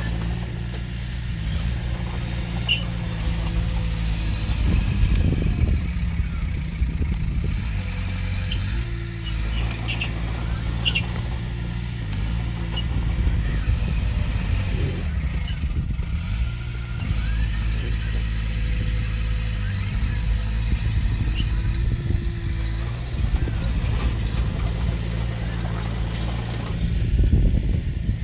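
Komatsu D20P bulldozer's diesel engine running steadily under work, with scattered light metallic clinks and a brief rise in loudness near the end.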